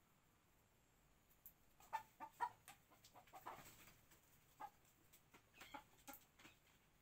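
Faint chicken clucking: a scattered run of short clucks between about two and six and a half seconds in.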